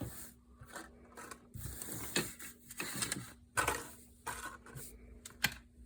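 Packaging and gear being handled: irregular rustling and crinkling, with scrapes and a sharp click about five and a half seconds in.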